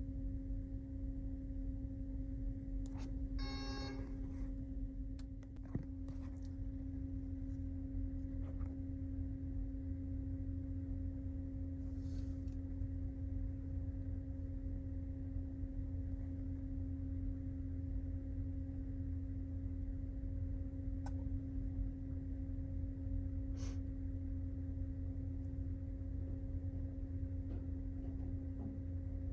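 Steady low drone of a car ferry's engines and machinery, a deep rumble with a constant hum tone through it. A brief ringing, chime-like sound comes about three and a half seconds in.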